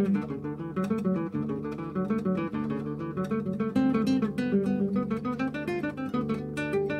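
Acoustic guitar music: a quick run of plucked and strummed notes.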